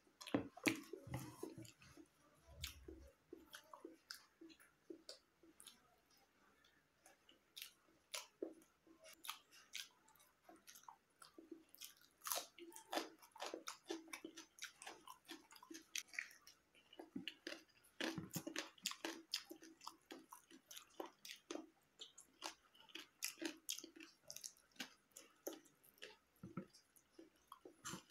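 Close-up chewing of a mouthful of rice and boiled food: irregular wet mouth clicks and smacks in bursts, with a quieter spell a few seconds in.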